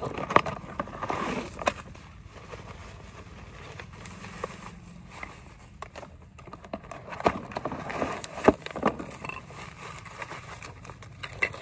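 Plastic bubble-wrap packaging crinkling and rustling as it is pulled out of cardboard camera boxes, with handling knocks on the boxes. Scattered sharp crackles, busiest in the first two seconds and again about seven to nine seconds in.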